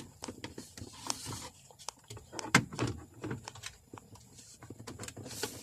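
Scattered light clicks and knocks of a plastic dashboard trim piece being handled and fitted into place in a car's centre console.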